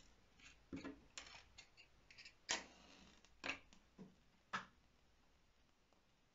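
Faint handling of a cardboard matchbox with small clicks and scrapes, and a wooden safety match struck against the box and catching alight.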